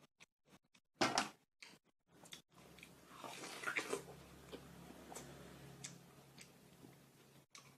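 Close-up biting and chewing of crisp watermelon, with one loud crunching bite about a second in followed by softer wet, crackly chewing and small clicks.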